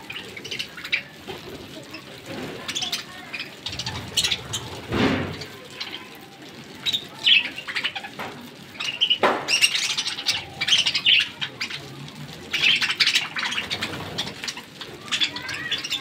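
A large flock of budgerigars chirping and chattering continuously in quick overlapping calls, getting busier and louder about halfway through.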